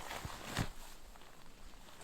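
Footsteps crunching in snow: two steps in the first second, the second one louder.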